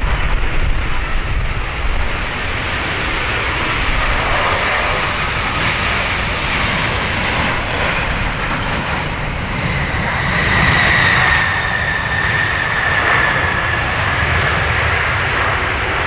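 Boeing 737-800 jet with CFM56-7B24 engines landing: a steady jet rumble as it comes in and touches down, under gusty wind rumble on the microphone. About ten seconds in, a loud high engine whine comes up and slowly falls in pitch as the jet rolls out.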